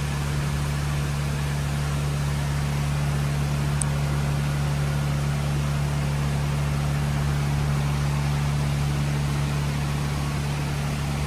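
Steady rushing noise with a constant low hum underneath.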